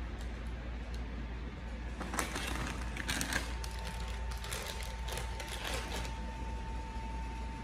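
Plastic snack packaging crinkling in short bursts as a wrapped lollipop and a bag of crisps are set down on a snack plate. A faint steady high tone comes in about halfway through.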